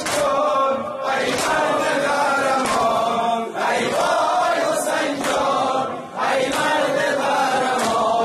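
Persian noha: a male reciter sings a Muharram lament through a microphone, with the congregation chanting along in unison. Sharp slaps of chest-beating (matam) land roughly once a second.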